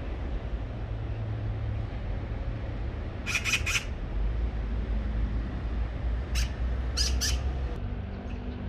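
Magpie calling: a quick run of three or four short harsh calls about three seconds in, then a single call and a pair of calls around six to seven seconds, over a steady low rumble.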